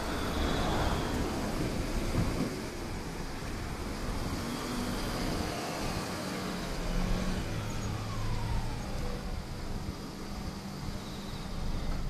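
Road traffic: cars driving past close by, then a motor scooter's small engine approaching. A falling whine runs through the middle.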